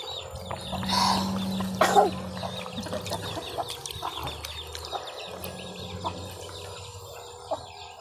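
Chickens clucking, with a louder call about a second in and another about two seconds in, among many small high chirps over a low steady hum.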